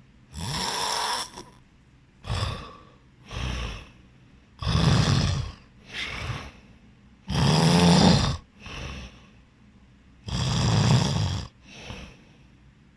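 A person snoring heavily in sleep: four long, loud snores a few seconds apart, with shorter, quieter snores between them.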